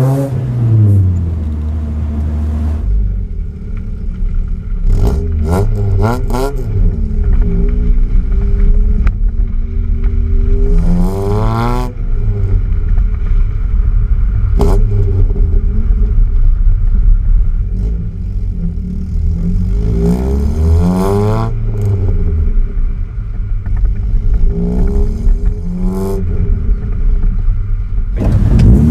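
VW Golf Mk1 engine through a Magnaflow stainless exhaust while driving, revving up and dropping back several times as it goes through the gears. The first few seconds are heard inside the cabin, then at the tailpipe with wind rushing over the microphone.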